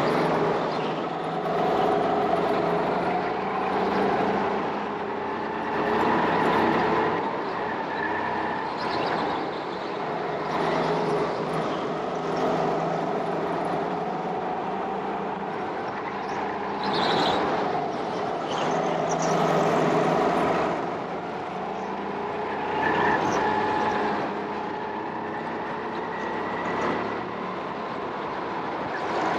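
Go-kart motor running, its pitch rising and falling with the kart's speed.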